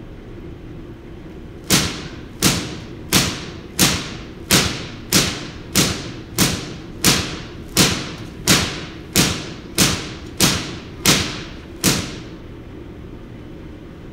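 Giant air-insulated Van de Graaff generator throwing spark discharges, artificial lightning bolts striking a car tire. Sixteen sharp cracks come about every two-thirds of a second over a steady low hum, then stop near the end.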